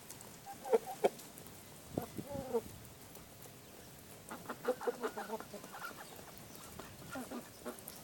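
Kalimero broiler chickens clucking in short, scattered calls: a couple about a second in, a longer call near two seconds, a run of clucks around the middle, and a few more near the end.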